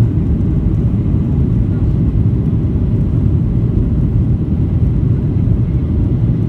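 Cabin noise of a Boeing 737-800 climbing out after takeoff: a steady low rumble of its CFM56-7B engines and rushing air, heard from inside the passenger cabin.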